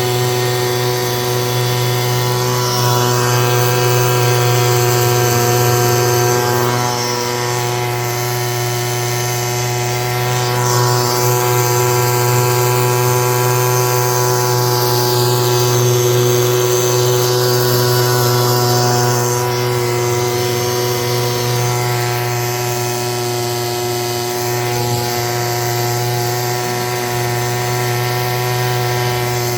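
A steady mechanical drone with a constant pitch and no change in level.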